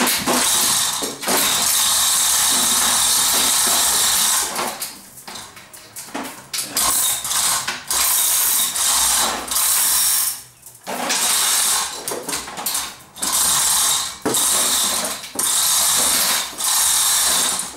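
Hand-operated chain block hoist being worked: the chain rattling through the block as the pawl ratchets, in loud runs of one to three seconds with short breaks.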